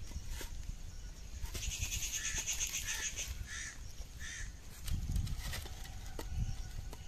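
Loose red bricks knocking and scraping as they are stacked by hand into a makeshift stove, with a few sharp clacks. A crow caws about five times in the middle.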